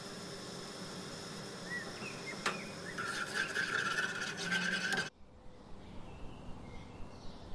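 Metal spoon stirring and scraping in a nonstick saucepan of dissolving jelly, over a steady low hum. The scraping grows louder about three seconds in and cuts off abruptly about five seconds in, leaving quieter soft regular ticks and faint chirps.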